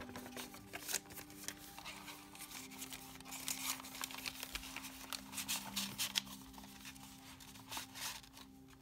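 Stained, vintage-style paper pages of a handmade junk journal being unfolded and turned by hand: repeated crisp rustles and light taps of paper, with a faint steady hum underneath.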